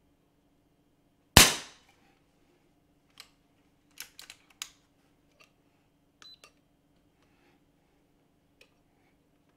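A moderated .22 PCP air rifle, the Ataman M2r, fires once with a sharp crack about a second and a half in, then a series of light metallic clicks follow as the action is worked to cycle it.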